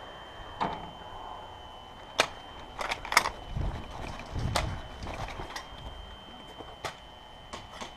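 Footsteps crunching on gravel with knocks and clicks from the player's gear as they move, a few sharp cracks standing out about two and three seconds in, over a faint steady high whine.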